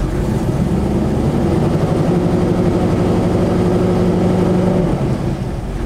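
1984 Chevy C10 pickup engine given a little throttle: it climbs from idle over the first second or two, holds a steady raised speed for about three seconds, then drops back toward idle near the end. The revs are raised to check whether the alternator is charging.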